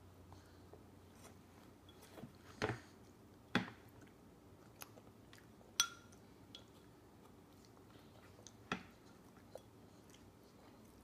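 A toddler's small plastic spoon knocking and clicking against a plastic bowl and high-chair tray while he eats. There are four louder knocks at uneven intervals and fainter clicks in between, over quiet chewing.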